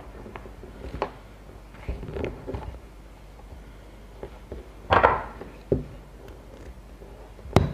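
Hands working nylon fishing line and small tackle over a wooden table: scattered light knocks and rubs, a louder rub about five seconds in, and a sharp click near the end.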